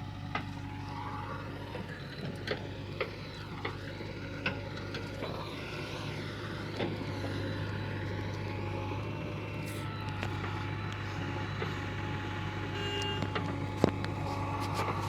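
A heavy machine's engine running steadily, with scattered sharp knocks and clanks.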